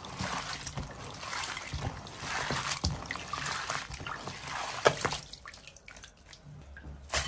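Water splashing and trickling as crayfish are rinsed in fresh changes of water, with scattered clicks. About five seconds in the water sound dies down, leaving a few drips and sharp clicks.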